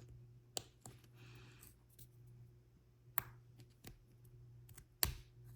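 A few sharp, isolated plastic clicks with soft rustling as small parts of a plastic toy-car kit are handled and worked off their frame; the loudest click comes near the end.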